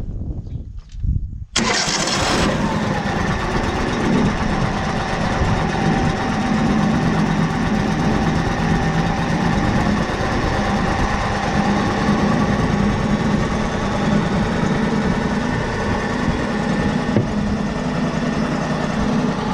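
Wood-Mizer LT35 HD portable sawmill's engine being started: a short spell of cranking, then it catches about a second and a half in and runs steadily.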